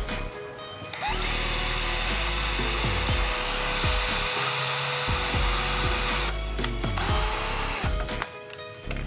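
Cordless drill boring a pilot hole into particle board: the motor spins up about a second in, runs steadily under load for several seconds, slows, runs briefly again and stops near the end. A steady music beat plays underneath.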